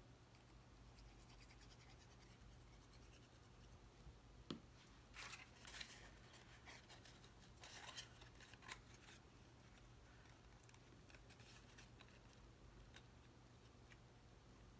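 Scissors trimming the edges of cardstock, heard as a few faint snips and scrapes between about four and nine seconds in, otherwise near silence.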